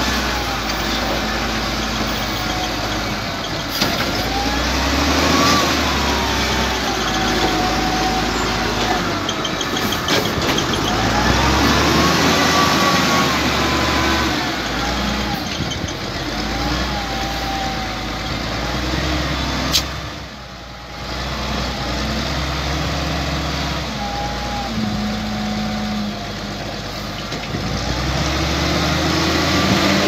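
XCMG LW300KN wheel loader's diesel engine running under load, its pitch rising and falling again and again as the machine works.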